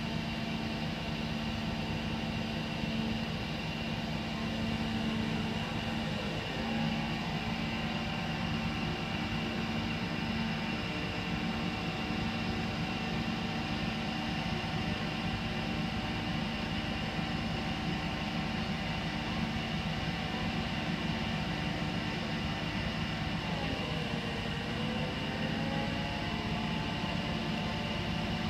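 Engine of the crane holding the pump column, running steadily with a constant droning hum. Its pitch shifts briefly about a quarter of the way in and again near the end, as the load is worked.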